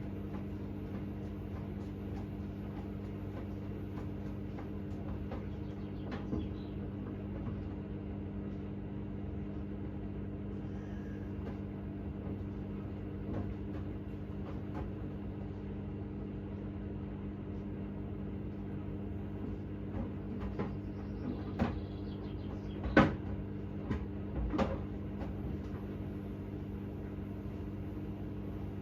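Hoover H-Wash 600 washing machine running with a steady hum, with scattered clicks and knocks that gather in the second half, the loudest about twenty-three seconds in.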